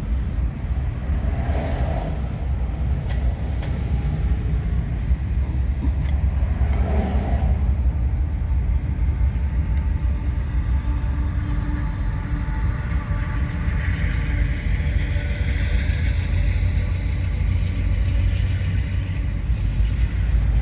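Long CSX intermodal freight train rolling past: a steady low rumble of the cars' wheels on the rails, with faint high ringing tones joining in during the second half.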